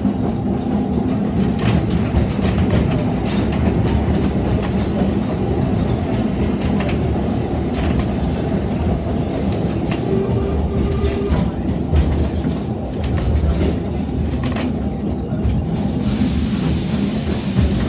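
Narrow-gauge railway carriage in motion, heard from inside: a steady rumble of wheels on the track with many short clicks as the wheels pass over rail joints.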